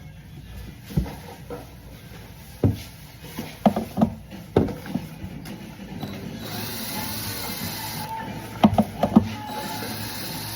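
Hardware being unscrewed and taken off an old wooden secretary desk: scattered small clicks and knocks of a screwdriver, screws and knobs against wood, with a quick cluster of knocks near the end. A steady hiss comes in about two-thirds of the way through.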